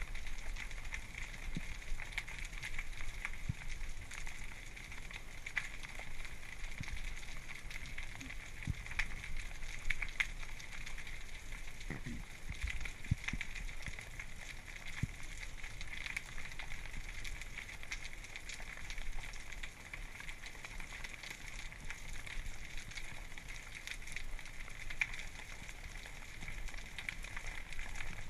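Underwater kelp-forest ambience: a steady crackling and fizzing, the snapping of shrimp, with scattered sharper clicks and a low rumble.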